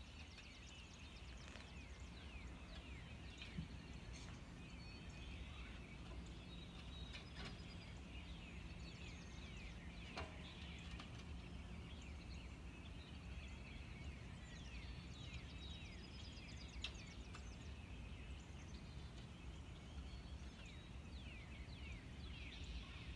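Small birds chirping again and again, short falling calls, over a faint steady low hum.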